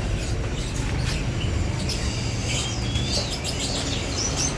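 Many caged songbirds chirping, with scattered short chirps and whistles, busiest toward the middle and end, over a steady low hum.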